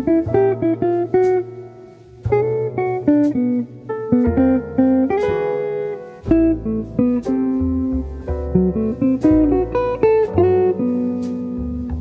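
Instrumental background music: a plucked guitar tune over a bass line.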